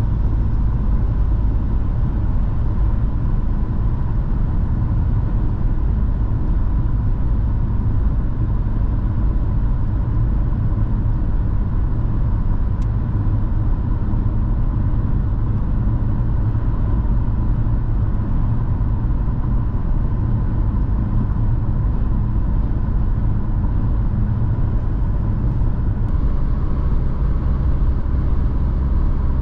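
Dacia Jogger with a 1.0-litre three-cylinder turbo petrol engine (TCe 110) driving at a steady pace: a constant low rumble of engine and road noise, with a faint steady whine above it.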